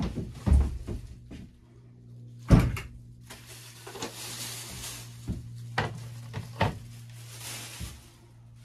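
Knocks, thumps and footsteps of someone moving about on a sailboat's wooden cabin sole, with one loud thump about two and a half seconds in and a hiss from about three to eight seconds, over a steady low hum.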